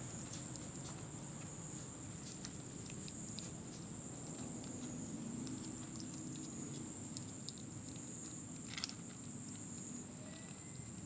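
A kitten crunching dry kibble: many small, irregular crunches and clicks, with one sharper click near the end.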